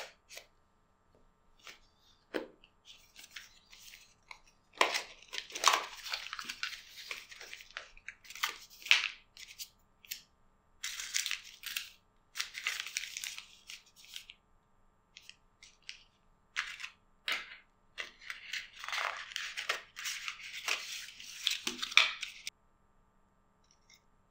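Unboxing of a small cardboard box by hand. A knife first slits the box's seal, and then paper and plastic packaging rustle and crinkle in irregular bursts, broken by a few sharp taps and clicks.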